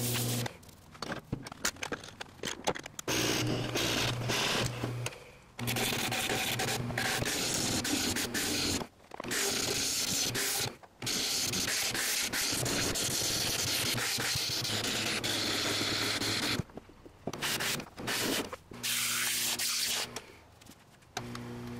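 Wood lathe spinning an epoxy-resin blank with golf balls cast in it, worked with sandpaper and a turning gouge: a steady hiss of abrasive and tool on the resin over the lathe motor's hum. The sound breaks off abruptly several times and then resumes.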